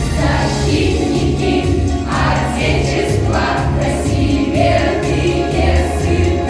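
A group of voices singing a song over a backing track with a steady, pulsing bass beat.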